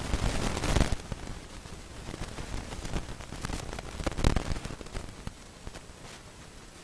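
Steady hiss with crackling, rustling bursts: a loud one in the first second and another about four seconds in, with scattered clicks between.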